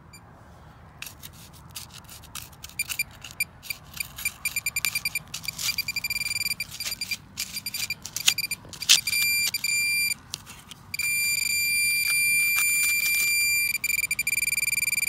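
Metal-detecting pinpointer beeping as it probes loose soil over a buried metal target. The beeps come faster as it closes in, merge into a steady tone about eleven seconds in for nearly three seconds, then break into rapid beeps again. The target is located. Short scrapes of the probe in the dry earth come between the beeps.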